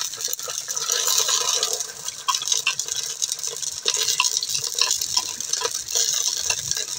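Chopped onion going into hot oil in a clay cooking pot and sizzling steadily, with a metal spoon clicking against the pot and plate now and then.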